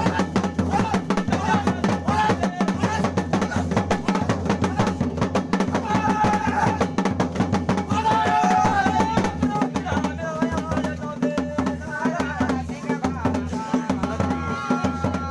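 Folk music: fast, continuous drumming with singing over it.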